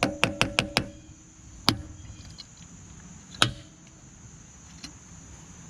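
Hard taps on metal with a short ringing tone: five quick taps in the first second, then two single knocks, with a faint one later.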